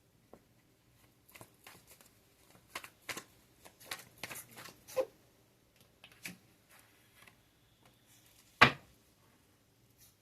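Tarot cards being shuffled and handled, a run of crisp riffling rustles and clicks for a few seconds, then scattered softer ones. Near the end comes a single sharp snap, the loudest sound.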